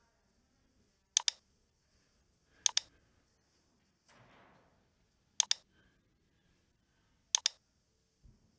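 Computer mouse button clicking: four sharp clicks, each a quick pair of press and release, a second or two apart. There is a short soft hiss midway between them.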